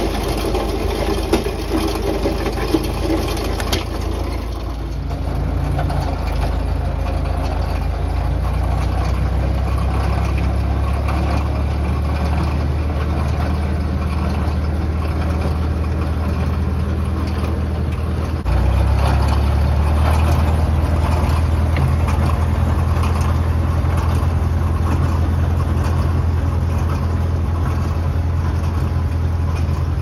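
Massey Ferguson MF 30 industrial tractor engine running steadily while its Farmi 501 winch drags a heavy sugar pine log uphill. The log crackles through brush and branches in the first few seconds. About two-thirds of the way through, the engine note steps up and gets louder.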